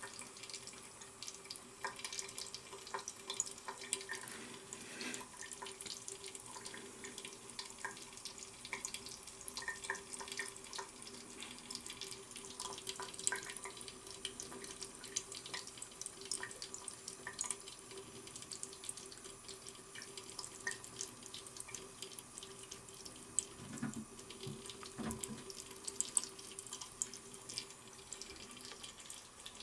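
Water running from a tap in a thin, steady stream, with many small irregular splatters and drips, and a faint steady hum underneath.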